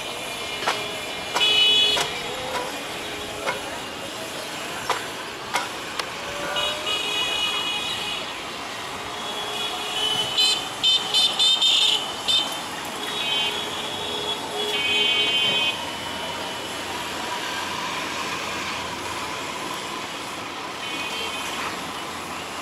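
Vehicle horns honking in short high-pitched toots, with a run of quick beeps about ten seconds in, over a steady hum of outdoor traffic.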